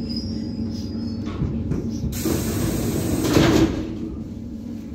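Pneumatic doors of an ED9MK electric-train car opening: a sudden air hiss about two seconds in, peaking near the middle and fading away, over the train's low steady rumble.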